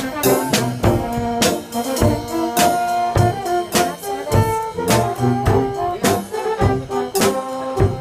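Live brass band music: French horns and other brass play a melody of held notes over a marching bass drum, cymbal and snare drum striking a steady beat about twice a second.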